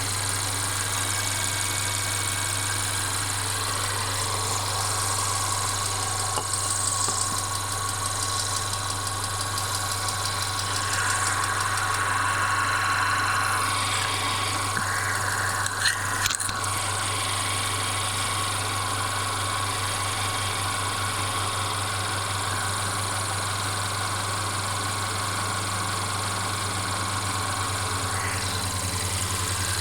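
Mercedes-Benz CLA 250's 2.0-litre turbocharged four-cylinder engine running steadily, with the continuous rattling noise the owner is trying to trace. A couple of sharp clicks sound about sixteen seconds in.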